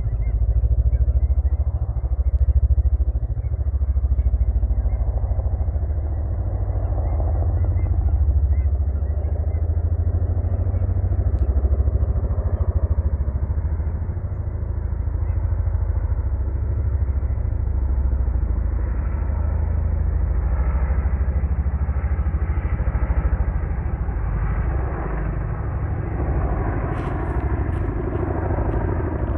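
Boeing CH-47F Chinook tandem-rotor helicopters flying overhead: a steady, deep, rapid thudding of rotor blades that swells and eases. More mid-range tone comes in during the second half as one comes nearer.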